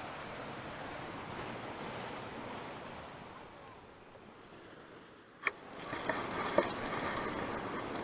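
Rushing, splashing water noise as a hooked fish thrashes at the river's surface, fading out about four seconds in. A sharp click comes about five and a half seconds in, then a few faint knocks.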